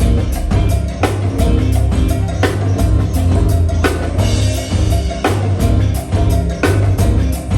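Live band playing: a drum kit beat over a heavy bass line, with a cymbal crash about every second and a half.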